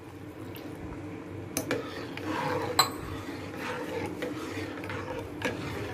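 Metal spoon stirring and scraping around a steel pot of hot agar-agar and coconut-milk mixture, with two sharp metallic clinks in the first three seconds, over a steady low hum.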